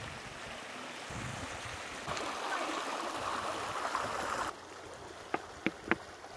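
Shallow stream running over rocks, a steady rushing, splashing flow that gets louder about two seconds in and drops off suddenly after about four and a half seconds. Near the end, three sharp clicks.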